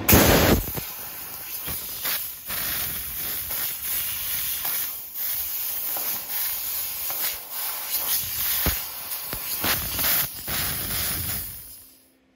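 Fiber laser cutting thin sheet steel: a loud, steady hiss of assist gas blasting from the cutting nozzle, broken by short sharp pops as the head pierces and moves from cut to cut. It fades out near the end.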